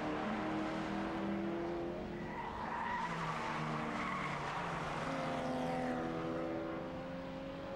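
Racing touring-car engines running hard as cars pass on the circuit, several engines overlapping with their pitches rising and falling.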